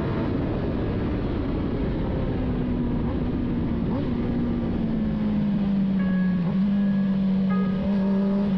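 Motor vehicle running, a dense rumble carrying a steady low hum that firms up about halfway through.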